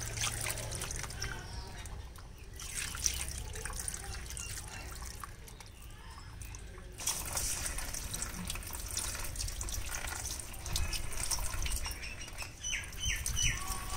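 Wet squelching and dripping as raw goat organs (liver, lungs, heart, kidneys) are pressed and lifted by hand on a wet banana leaf, in irregular stretches.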